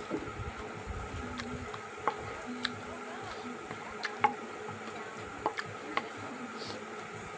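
Eating Mimi instant noodles close to the microphone: scattered sharp clicks of utensils against the bowl, about ten of them at uneven intervals, with soft chewing.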